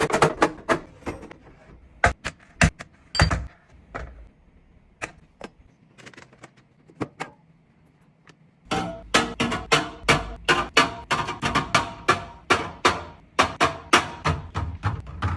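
Groceries and containers being put into a refrigerator: a run of short knocks and clacks as items are set down on the shelves and in the door bins. It goes quieter for a few seconds in the middle, then picks up again as a fast run of knocks with a low hum underneath.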